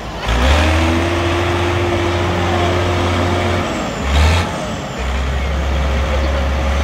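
Tractor diesel engine running with a steady low drone. The drone drops away briefly about four seconds in and then returns. Two short hissing rushes are heard, one near the start and one about four seconds in.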